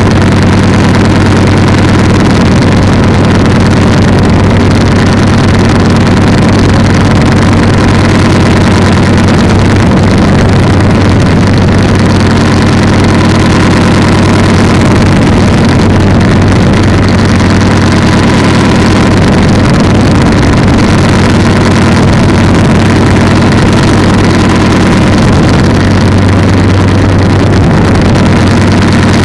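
Polini 190 single-cylinder two-stroke engine on an ultralight trike running loudly at a steady speed, with no change in pitch.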